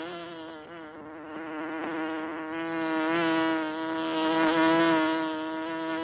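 Honey bees buzzing: a steady, droning hum that dips slightly about a second in, then swells louder in the middle and again toward the end.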